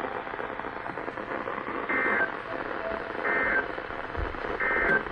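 Weather radio broadcast with steady static hiss, cut by three short, buzzy bursts of SAME digital data, roughly one every 1.3 seconds. Their shortness marks them as the end-of-message code that closes an alert or weekly test.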